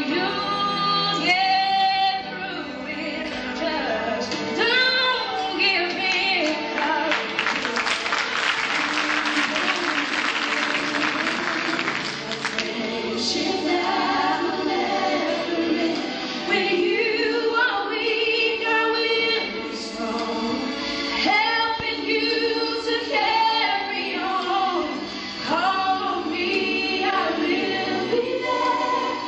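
A choir singing a gospel song. About seven seconds in, a loud wash of noise covers the voices for about five seconds.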